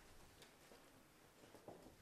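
Near silence: faint room tone with a few faint clicks and rustles.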